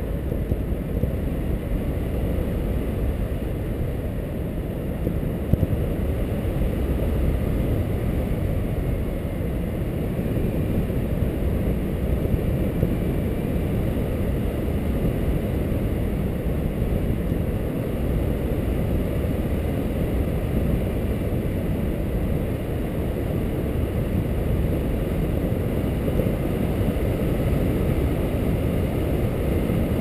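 Steady low rumbling wind noise on the microphone from the airflow past a paraglider pilot's harness in flight.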